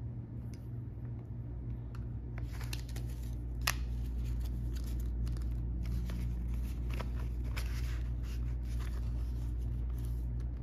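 Paper banknotes rustling and a clear plastic binder pouch crinkling as bills are handled and slid into it: scattered crackles and clicks begin a couple of seconds in, with one sharper click a little before four seconds in. A steady low hum runs underneath.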